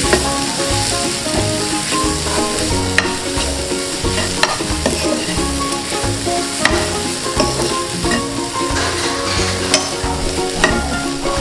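Grated raw mango, green chillies and curry leaves sizzling in oil in a nonstick pan as they are stirred with a steel spatula, with a sharp click of the spatula against the pan every second or two.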